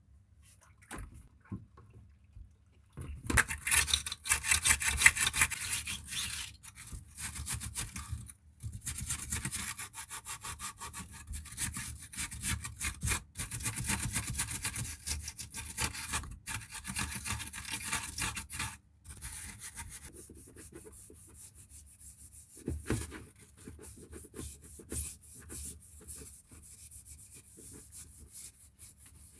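Green scouring pad scrubbing the plastic parts of a tabletop water dispenser in soapy water: rapid back-and-forth rubbing strokes. They start about three seconds in and ease to softer scrubbing after about twenty seconds.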